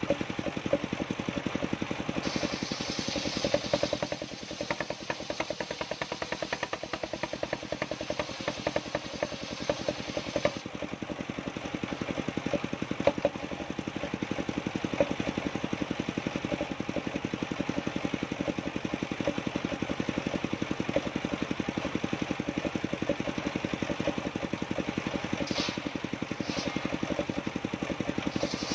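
An engine running steadily at idle, with a rapid, even pulse.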